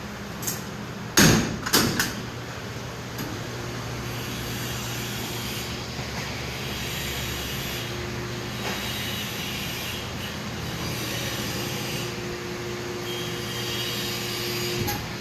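Two loud metal bangs about a second in as the compactor baler's door is shut, then the baler's motor runs with a steady hum as the press platen travels down.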